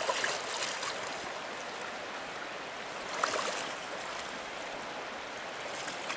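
River current running over a rippled, shallow stretch: a steady rushing hiss, with brief louder swells right at the start and about three seconds in.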